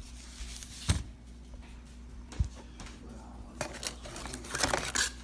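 Packaging being handled: two sharp knocks about a second and a half apart, then a stretch of crinkling and clicking, as the camera box's contents are set down and taken out.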